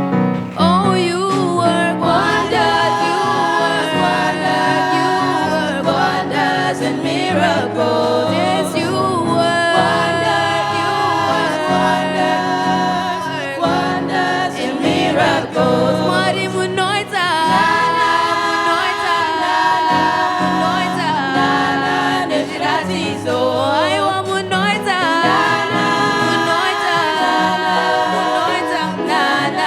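A choir singing a Shona gospel song in several parts, continuously.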